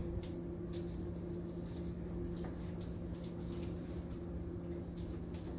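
Hand-pumped pressure sprayer spraying liquid onto a concrete floor and walls: a steady hiss of spray with irregular light spattering, over a steady low hum.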